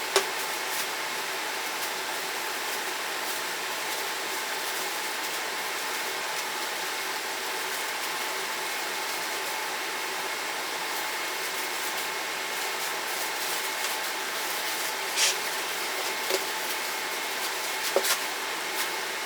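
Steady fan-like hiss with a faint hum, and a few short clicks and knocks as the quick-release umbrella softbox is collapsed, one click at the start and a few more near the end.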